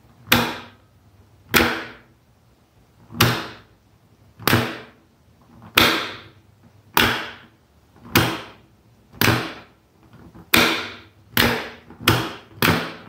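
Rotary selector switch being snapped on and off while electromagnetic contactors clack in and out with it, one contactor pulling in on one 'on' and the other on the next. About a dozen sharp clacks, roughly one every second and a quarter, coming faster near the end.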